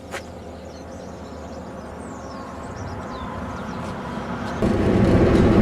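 Car interior road and engine noise while driving, slowly growing louder, then stepping up abruptly about four and a half seconds in. A brief click comes just after the start.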